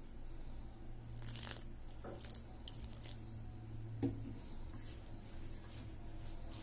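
A hand mixing rice flour and finely chopped dill leaves with water in a stainless steel bowl to make a stiff dough: scattered soft crunching and squishing sounds, with one sharper click about four seconds in.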